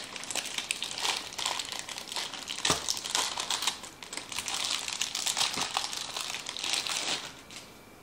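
Crinkling and crackling of a metallic anti-static bag as a 3.5-inch hard drive is worked out of it, with one sharp knock a little under three seconds in. The crinkling stops about a second before the end.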